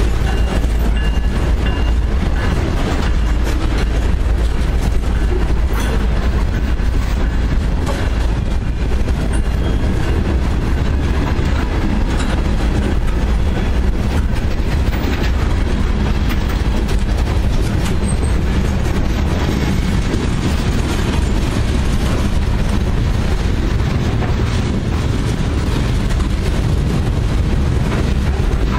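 Freight cars rolling past close by: a steady heavy rumble of steel wheels on rail, with repeated clacks as the wheels cross rail joints.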